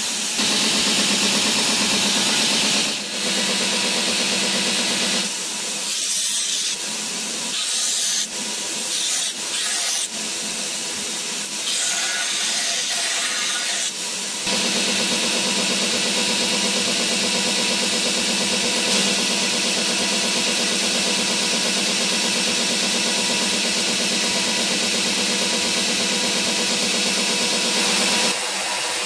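Linisher (belt grinder) running with a steady motor hum and belt hiss while small O1 tool-steel bolster pieces are ground against the belt. Between about 5 and 14 seconds in, the sound wavers and dips as the work is pressed on and lifted off; after that it runs evenly.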